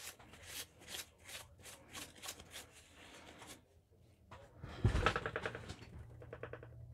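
Paper towel rubbed over wet sandpaper on a wooden board, quick wiping strokes a few times a second, then a louder thump and rustle about five seconds in.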